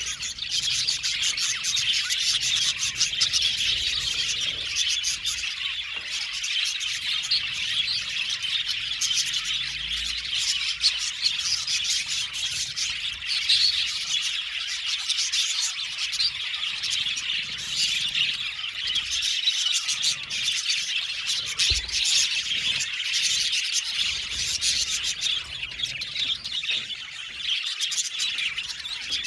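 A flock of budgerigars chirping and chattering continuously, many birds calling over one another in a dense, steady twittering.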